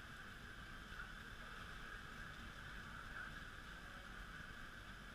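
Steady outdoor background noise: a constant hiss with a low, fluttering rumble, and no distinct events.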